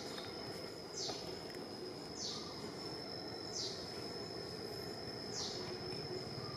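Forest insects drone steadily on one high pitch. A short, high, falling call repeats every second or two over a low background hiss.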